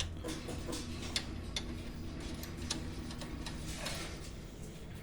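Ratchet wrench clicking in short, uneven runs, a few clicks a second, as a self-locking nut is run onto a new suspension stabilizer link.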